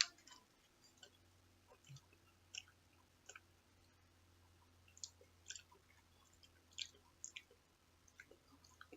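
Faint chewing and scattered irregular mouth clicks of someone eating microwave mashed potatoes, over a faint steady low hum.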